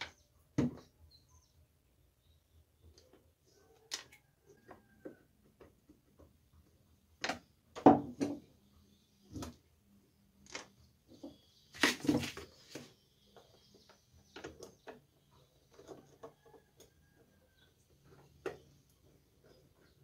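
Scattered clicks, knocks and rattles of a plastic blender motor base being handled, turned over and screwed back together, loudest about 8 and 12 seconds in.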